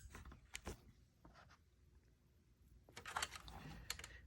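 Near silence: room tone with a few faint clicks and handling sounds, a pair about half a second in and a small cluster near the end.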